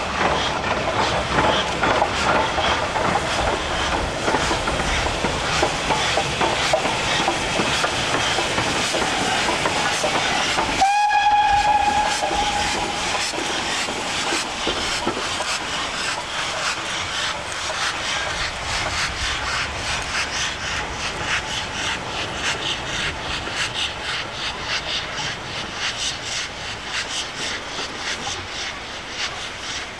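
Steam locomotive working along, with a steady, rapid rhythm of exhaust beats. About eleven seconds in, after a momentary break, its whistle gives one short blast. The beats then carry on, slowly fading as it draws away.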